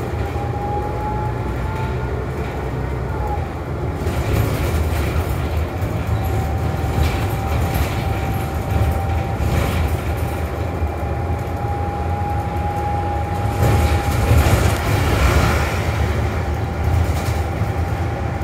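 Interior ride noise of a New Flyer XD40 diesel city bus under way: a steady low engine and road rumble with a thin, high, steady whine through much of it. The noise grows louder for a couple of seconds near the end.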